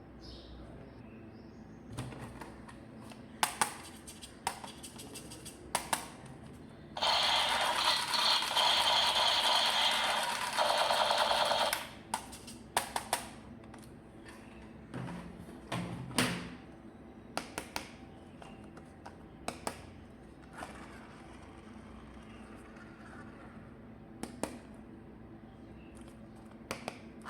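Close-up handling of plastic toys and packaging: scattered clicks and taps, with one louder stretch of about five seconds about a quarter of the way in.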